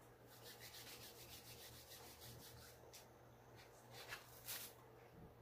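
Faint rustling and tearing of mandarin peel being pulled off by hand: a quick run of small crackles in the first two seconds, then a few single ones.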